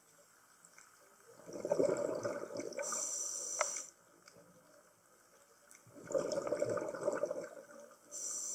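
Scuba diver breathing through a regulator underwater, two breaths about four seconds apart: each a bubbling rush of exhaled air followed by a high hiss of air through the regulator.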